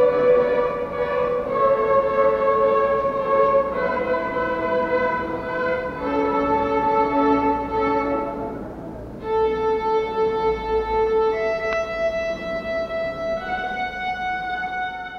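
Children's violin ensemble playing a Christmas children's song arranged for violin, in held bowed notes that change about once a second, with a short break in the melody about nine seconds in.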